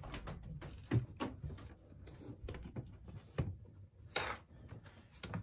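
Light metal clicks and knocks as an old Master Lock padlock is handled and fitted through the hasp of a flight-case latch, with a brief scrape about four seconds in.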